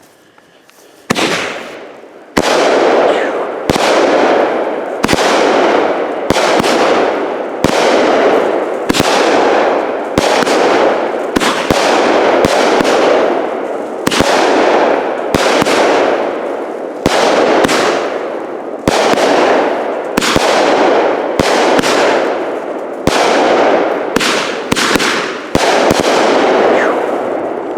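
Phantom 'Solar Explosion' 200-gram 19-shot repeater cake firing, loud. It launches about one shot every second and a bit, each a sharp crack followed by a noisy burst that fades out, with a few shots coming in quicker succession near the end.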